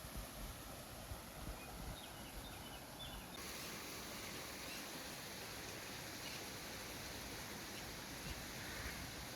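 Wind blowing outdoors: a steady rush of air with uneven low rumble, and a few faint chirps in the first few seconds. The hiss turns brighter a little over three seconds in.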